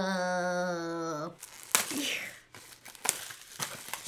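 A voice holds a drawn-out laughing note that ends about a second in. Then the plastic wrapping of an instant yakisoba noodle pack crinkles and tears as it is opened.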